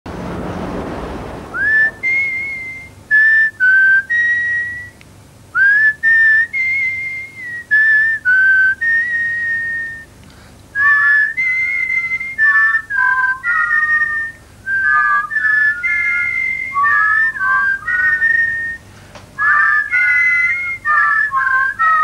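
A marching-style tune whistled as a melody of clear, separate notes. About halfway through, a second whistled part joins below it in harmony. A short burst of noise comes before the tune starts.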